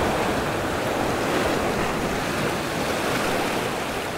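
Ocean surf washing steadily against rocks, with some wind on the microphone.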